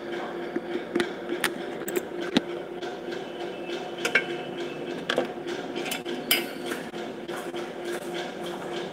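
Steady room hum with scattered light knocks and clinks throughout.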